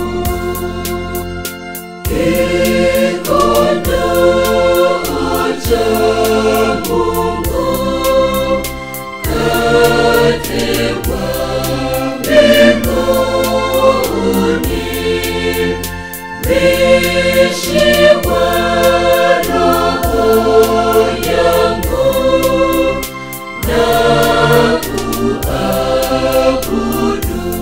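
Mixed church choir singing a gospel hymn over an instrumental backing, with a bass line that changes note about once a second.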